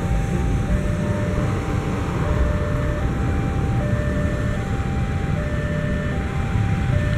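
Level-crossing warning signal sounding its two-tone electronic alarm, a higher and a lower tone alternating about every three-quarters of a second, over the low steady rumble of a diesel locomotive hauling fuel tank wagons slowly up to the crossing.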